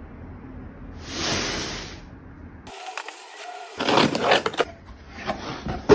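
Hands opening a taped cardboard mailing box: a short rasp about a second in, then scattered scraping, clicking and rustling of the cardboard and tape.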